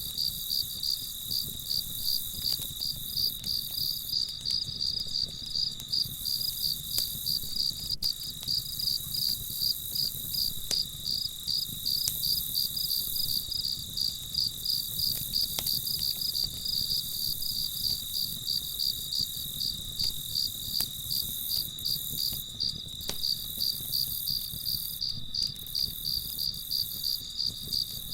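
Crickets chirping in a steady, even rhythm of about three high chirps a second, over a low background hum, with a few faint clicks now and then.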